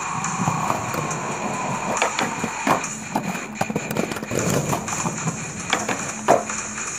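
Skateboard rolling on a concrete sidewalk, with repeated sharp clacks and knocks of the board, the loudest about six seconds in.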